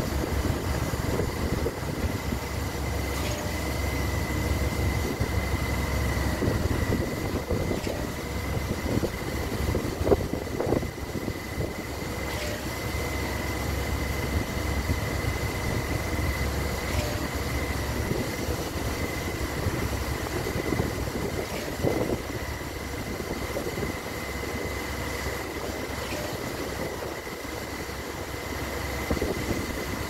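Concrete pump running as it pushes concrete out through its end hose: a steady engine and hydraulic rumble with a thin steady whine above it, and occasional knocks every few seconds.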